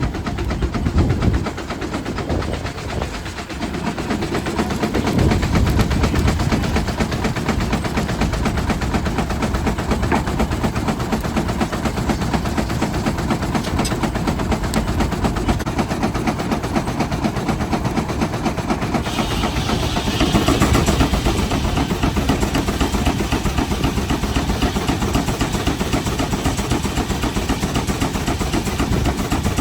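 Steam traction engine thumping away in a rapid, steady beat. About 19 seconds in, a higher-pitched noise joins it.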